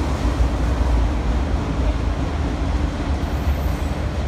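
Freight train of autorack cars rolling past, a steady rumble of wheels on rails.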